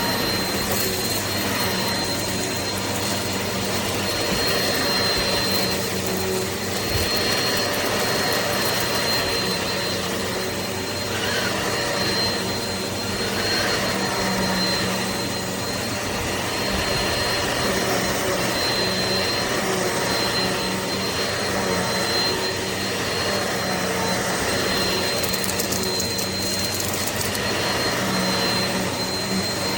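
Eureka PowerSpeed bagless upright vacuum cleaner running steadily, its motor's airflow noise topped by a thin, steady high whine.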